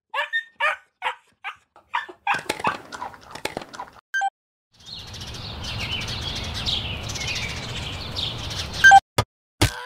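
Dog sound effect: a rapid string of short, high whimpering yips. Then a steady outdoor ambience with birds chirping over a low rumble, and two sharp clicks near the end.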